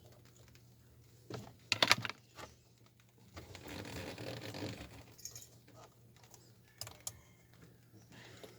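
Small metal and plastic parts clicking and rattling as they are handled: a quick cluster of sharp clicks about two seconds in, a rustling stretch in the middle, and a couple of single clicks later. This is the sound of hand work on the ignition switch and key in a car's steering column.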